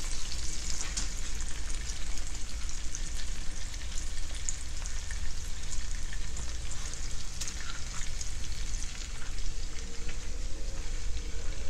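Triggerfish fillets frying in hot butter and oil in a pan: a steady sizzle with small crackles throughout.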